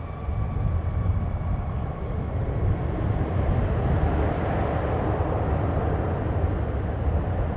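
Boeing 737-800's CFM56-7B jet engines at takeoff power, heard from behind during the takeoff roll: a deep rumble with a broad jet roar that builds through the middle, while a thin engine whine fades out over the first couple of seconds.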